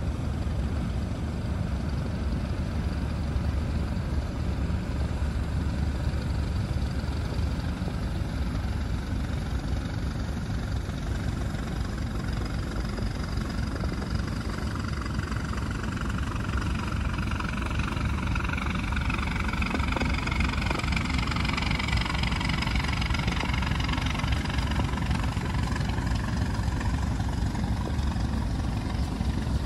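Boat engine running steadily with a low drone, over the rush of river water along the hull. In the second half a brighter rushing sound swells and slowly falls in pitch, then fades.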